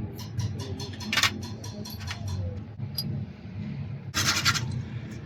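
Small metal injector parts being handled and fitted together: light clicks, with two short scratchy scrapes, one about a second in and one about four seconds in, over a low steady hum.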